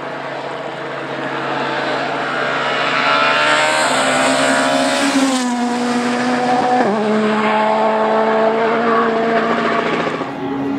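Rally car at full throttle approaching and going past: the engine note gets louder and climbs, then drops in pitch as the car passes about five seconds in. An upshift near seven seconds brings the revs down suddenly, and the engine pulls hard on a steady note.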